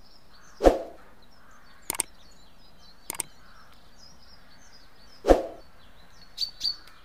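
Small birds chirping and singing in the background of an outdoor field recording. Two loud harsh sounds come about a second in and again past the five-second mark, with pairs of quick sharp clicks in between and two sharp high calls near the end.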